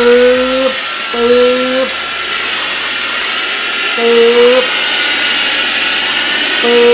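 Pando V9 Pro cordless stick vacuum running with a steady high whine as it sucks up spilled cat litter. A short low hum that rises slightly breaks in four times, each lasting under a second.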